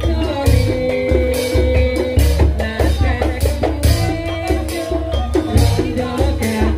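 Live gajah-gajahan folk music played loud through a sound system: heavy bass-drum beats on a steady rhythm, with percussion and a melody over them.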